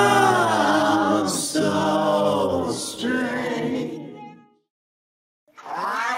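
Canadian National locomotive's multi-chime air horn sounding a chord in a series of blasts: three held blasts with brief breaks between them, the last cutting off about four and a half seconds in, then a new blast starting about a second later. Short hisses come near the breaks.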